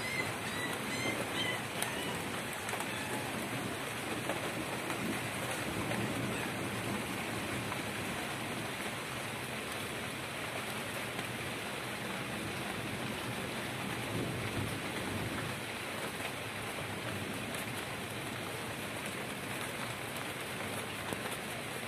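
Steady rain falling and pattering on surfaces, with faint low rumbles of distant thunder twice.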